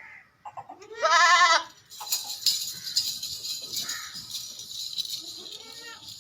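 A Makhi Cheeni goat gives one loud, quavering bleat about a second in, with fainter bleats near the end. A steady high-pitched hiss with scattered clicks runs under the later part.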